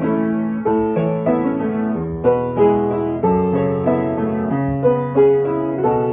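Solo grand piano playing a flowing line of notes and chords over held bass notes, with a couple of stronger accented chords.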